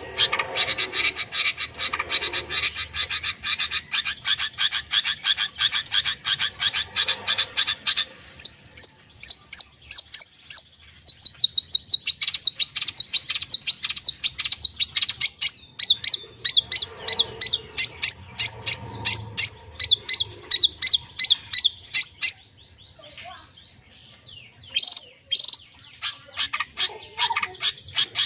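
Long-tailed shrike (cendet) singing a song full of mimicked phrases: a fast run of repeated high chirps, then changing strings of notes, with a short pause near the end.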